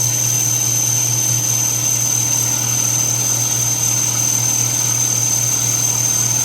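Electric kitchen blending appliance running steadily, grinding nuts into nut butter that is still a little grainy: a constant low motor hum with a steady high whine.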